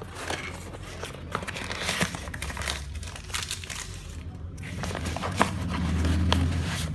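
Packaging being handled: crinkling and rustling with many small clicks and knocks. A low rumble swells near the end.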